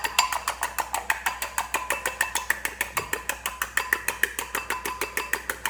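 A fork beating egg whites in a bowl, its tines ticking against the bowl in a steady fast rhythm of about nine strokes a second. The whites are being whisked until loose and frothy, not stiff.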